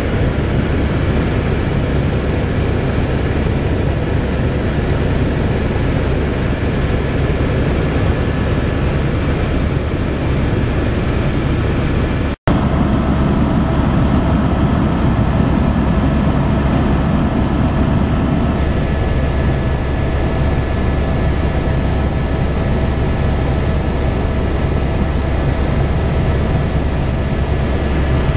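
Tour helicopter in flight: steady rotor and engine noise with a heavy low rumble and a few steady high whine tones. The sound cuts out for an instant about twelve seconds in, then resumes with its whine tones slightly shifted.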